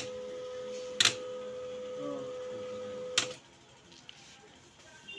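HP LaserJet 1020 laser printer running with a steady hum and three sharp clacks from its mechanism, then stopping about three seconds in.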